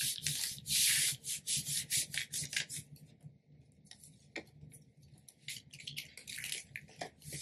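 A hand rubbing back and forth over the back of a rhinestone template sheet, pressing the hotfix rhinestones onto transfer tape: a run of quick, dry swishing strokes, thickest in the first three seconds and again near the end.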